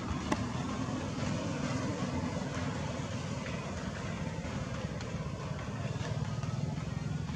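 A steady low rumble, with one sharp click about a third of a second in.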